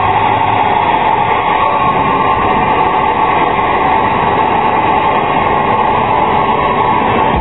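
Loud, steady background din of a busy exhibition hall, an even rushing noise with no distinct events.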